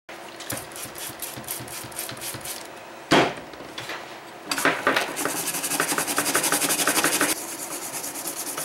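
Toothbrush scrubbing the solder side of a power-supply circuit board, the bristles rasping in quick back-and-forth strokes that turn brisker and louder from about halfway, cleaning the freshly reflowed joints. A louder short noise comes about three seconds in.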